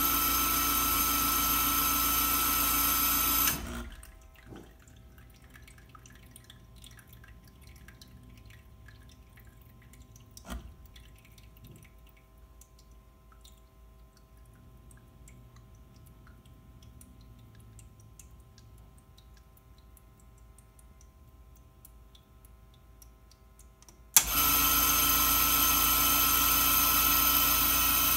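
Rancilio S27 espresso machine's pump motor running with a steady hum, switching itself on and off unbidden. It stops about three and a half seconds in. After about twenty seconds of faint ticking, with a click near the middle, it starts again suddenly near the end.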